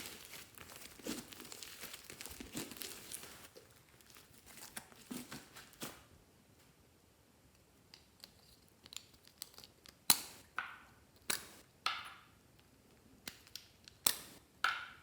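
Fluffy slime full of foam beads being squished and stretched by hand: a run of fine crackling and crunching for the first several seconds, then, after a short pause, scattered sticky pops and squelches.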